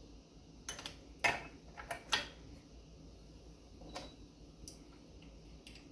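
Light clicks and knocks from engine parts being handled, an exhaust pipe and rubber hoses being fitted: a handful of separate taps, the loudest about one second and two seconds in.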